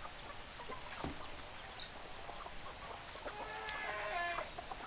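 Chickens clucking, with a longer drawn-out hen call about three and a half seconds in and a single knock about a second in.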